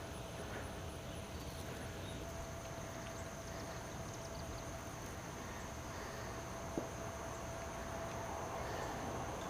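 Faint outdoor ambience with steady insect trilling, and one faint click about two-thirds of the way through.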